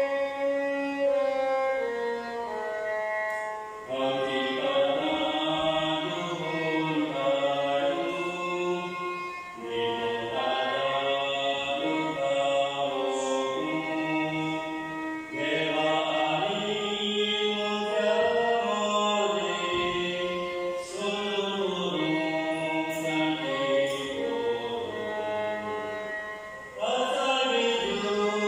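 A hymn sung with instrumental accompaniment, the melody moving in phrases that start afresh about every five or six seconds.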